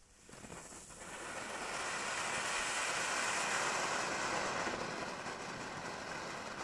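A small category F1 garden fountain firework from a Nico Summer Fountains set, lit and spraying sparks: a steady hiss that swells over the first second or two, then holds.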